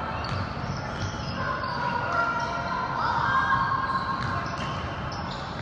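Basketball game in a gym: a ball bouncing on the court among players' and spectators' voices.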